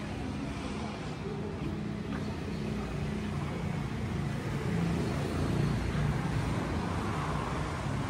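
Steady road-traffic rumble. A low hum from a large temple bell dies away in the first couple of seconds.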